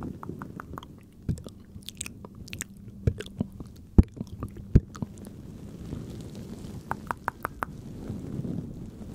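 Close-miked ASMR mouth sounds: irregular wet clicks and smacks of lips and tongue, a few sharper ones near the middle, over a soft breathy hiss.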